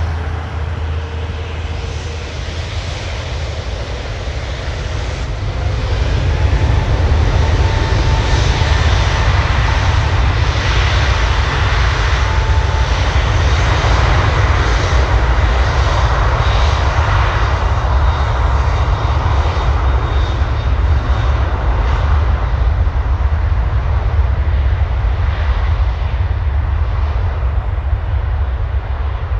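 Airbus A380's four jet engines running loudly with a deep rumble as the airliner moves along the ground, getting louder about six seconds in and staying loud.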